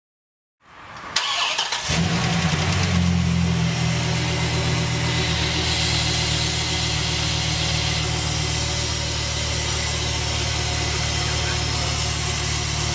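Ram SRT pickup engine cranking for about a second, catching, running a little higher for a moment and then settling into a steady idle. A thin, steady high-pitched tone runs over the idle, typical of the engine noise that the owner thinks could be coming from the cold air intake.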